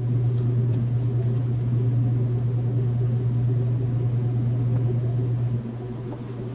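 Vehicle engine running steadily with a low, even hum, dropping in level about five and a half seconds in.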